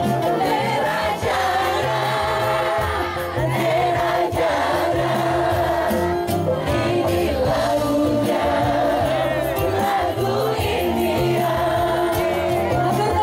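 A man and women sing a duet into microphones over loud amplified music with a steady bass line, several voices together at times.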